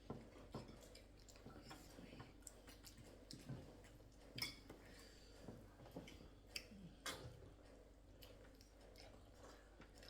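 Faint chewing and mouth smacks of people eating, with scattered small clicks every second or so.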